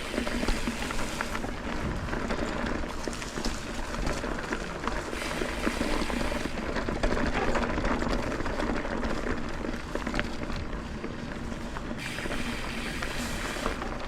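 Mountain bike rolling along a dirt trail: a steady rustle of tyres on dirt with many small clicks and rattles from the bike.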